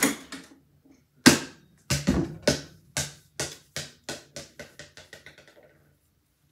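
A basketball hits with two hard thumps, then bounces on the floor, the bounces coming quicker and fainter until it settles, about five and a half seconds in.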